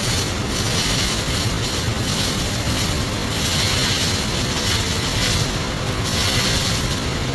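MIG welding arc crackling and hissing in runs of a second or two, over a loud steady low rumble.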